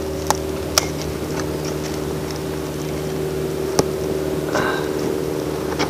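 Campfire of dead leaves and small twigs burning in a metal fire ring, giving a few sharp pops and crackles, the loudest a little under four seconds in, over a steady low hum.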